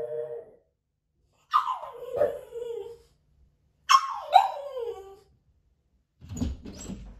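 A dog's long whining cries, each sliding down in pitch: one trailing off at the start, then two more about two seconds apart. Near the end come low clunks of the front door being unlocked and opened.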